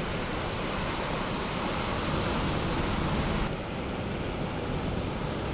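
Breaking ocean surf: waves crashing and white water rushing in a steady roar of noise, dropping a little in level about three and a half seconds in.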